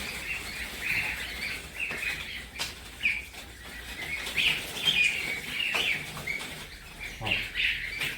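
A flock of young Lion Head goslings peeping: many short, high calls overlapping one another, with a couple of brief clicks among them.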